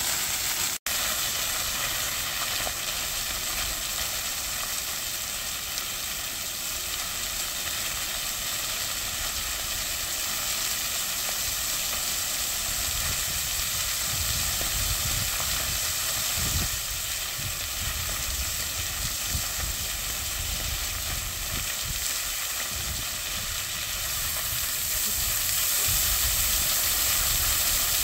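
Plaza fountain jets spraying and water splashing down onto the tiled basin: a steady hiss of falling water that grows a little louder near the end.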